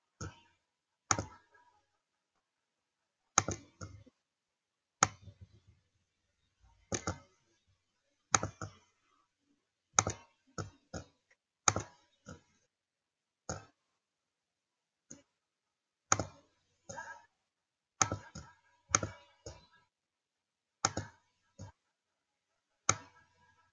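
Computer mouse button clicks, some single and some in quick pairs, coming at irregular intervals with silence between them.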